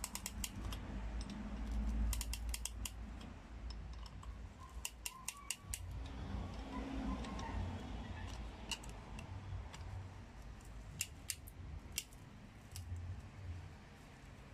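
Irregular sharp metallic clicks and clinks in scattered clusters, from a ratchet-band piston ring compressor and a steel hand tool being worked by hand at an engine block while pistons are fitted.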